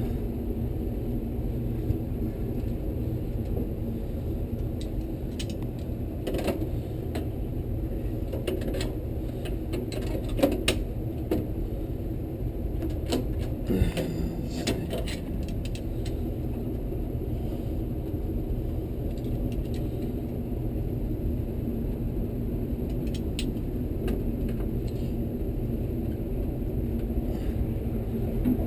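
Scattered light metallic clicks and clinks of pliers and hand tools working on a tankless water heater's burner assembly, over a steady low hum.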